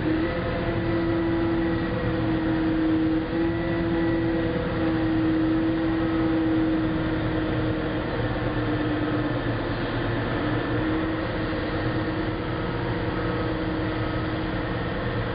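Caterpillar 988F wheel loader's diesel engine running steadily as the loader lifts its bucket high and tips it forward. A steady whine over the engine note wavers slightly in pitch.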